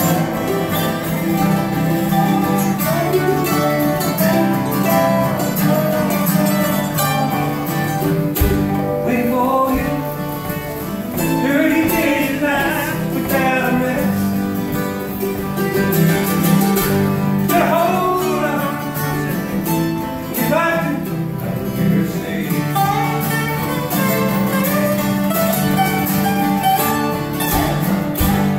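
Live acoustic country/bluegrass string band playing: mandolin, lap-style slide guitar and two strummed acoustic guitars, with singing over them.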